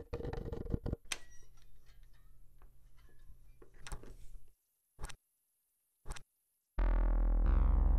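A deadbolt thumb-turn clicking and rattling as it is turned, ending in a sharp clack about a second in, with a low hum underneath. Then three single sharp ticks about a second apart, and synthesizer and electric piano chords start suddenly near the end.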